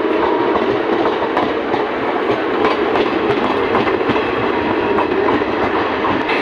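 Loud, steady rail noise of two trains running side by side on parallel tracks, heard from the open doorway of a DMU coach. Steel wheels clatter over the rails with scattered sharp clicks as the Jammu Tawi–Sambalpur Express coaches pass close alongside.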